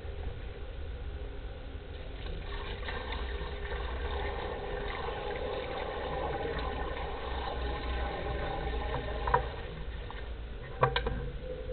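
Sewer inspection camera moving through a drain pipe: a steady low hum with scraping and rumbling, and a few sharp knocks near the end.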